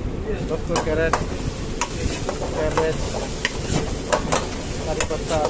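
A steel ladle stirring and scraping chopped vegetables and onion masala around a metal kadai, over the sizzle of frying oil. The ladle clinks sharply against the pan several times.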